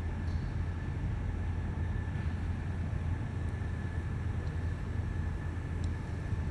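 Mobile crane's engine running steadily, a continuous low rumble with a thin steady whine above it.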